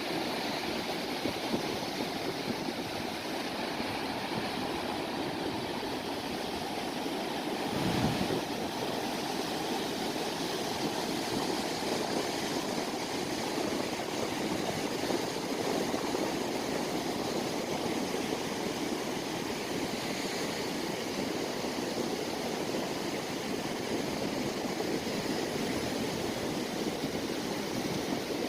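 Sea surf washing ashore: a steady rush of waves, with one brief louder surge about eight seconds in.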